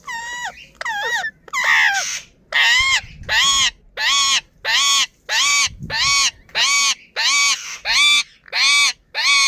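Pet parrot calling: a few varied calls, then a run of about ten identical arching call notes repeated evenly, roughly one and a half a second.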